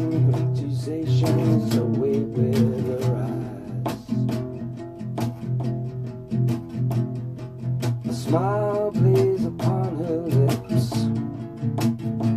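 Instrumental break of a song: an acoustic guitar strummed steadily over a sustained low note. A melody line slides up and down in pitch in the second half.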